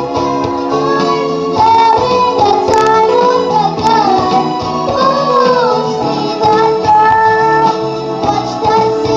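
A girl singing into a microphone over backing music.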